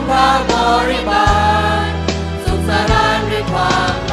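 Student choir singing a Thai song in harmony, holding long sung notes over an instrumental accompaniment with a steady bass line.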